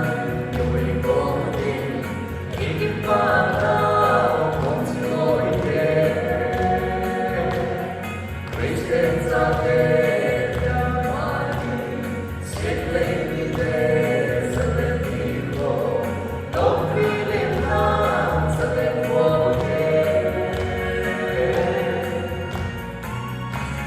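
A group of voices singing together over backing music, in sung phrases a few seconds long with a steady bass underneath.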